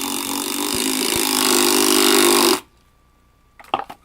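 Bosch PDR 18 Li 18-volt cordless impact driver hammering a fastener into solid wood without pre-drilling, getting slightly louder toward the end, then stopping abruptly about two and a half seconds in. A couple of short clicks follow near the end.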